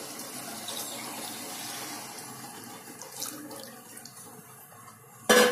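Water poured in one steady stream from a steel bowl into a pressure cooker holding the chicken and rice masala. The pour thins out after about two and a half seconds.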